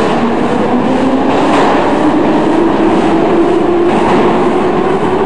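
Moscow Metro train running, a loud steady rumble with a humming tone that dips briefly near the start and then rises.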